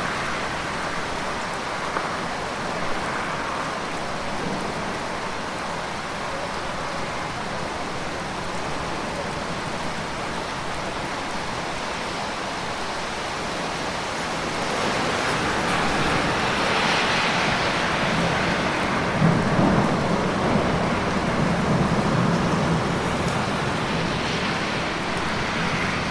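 Steady rain falling, swelling louder about halfway through with a low rumble like distant thunder, and a few sharp crackles.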